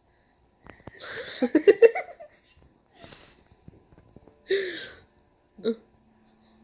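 An animal sneezing, a few short sneezes in a row, the loudest about halfway through.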